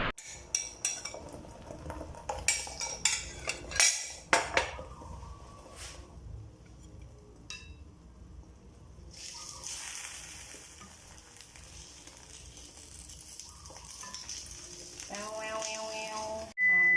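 Egg frying in hot oil in a pan, sizzling, with a utensil clicking and scraping against the pan during the first few seconds, as a tornado egg is cooked. A pitched tone comes in near the end, followed by a steady high beep.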